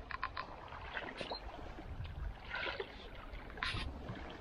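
Small water lapping at the shoreline, with a few light clicks scattered through.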